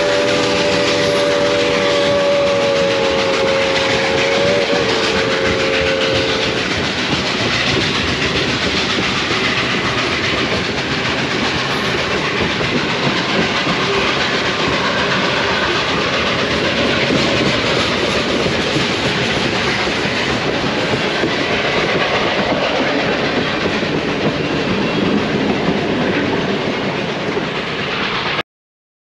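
Railroad cars rolling past at close range, wheels clattering over the rail joints. For the first six seconds or so, the distant steam locomotive's multi-note whistle holds one long blast that wavers briefly near its end. The sound cuts off abruptly just before the end.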